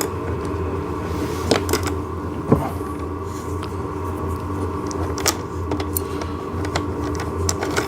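Irregular metallic clicks and clinks of wrenches tightening an 8 mm nut and washer onto a small pivot axle, the loudest about two and a half seconds in, over a steady low hum.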